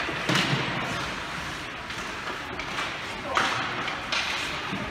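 Three dull thuds over a steady noisy background: one just after the start, and two more about three and four seconds in.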